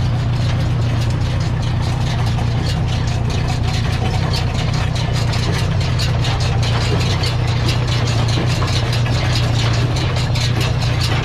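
Ferguson tractor engine running steadily, a deep even hum with a rapid ticking over it.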